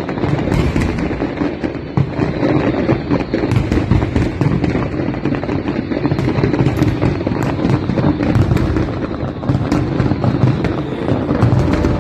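Aerial fireworks display going off: a dense, unbroken string of bangs and crackles.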